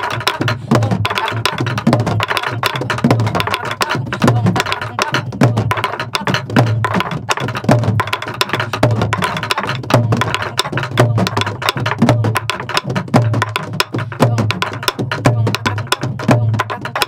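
Several sori-buk (pansori barrel drums) played together: sharp stick strikes on the wooden shell and deeper palm and stick hits on the drumheads. They repeat a steady four-beat buk pattern, deong, ttatta-gung, ttak-gung, at several strokes a second.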